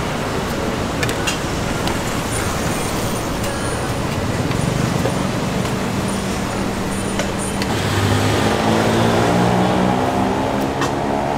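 Steady street traffic noise, with a motor vehicle's engine running close by and getting louder from about eight seconds in. A few sharp clicks sound over it.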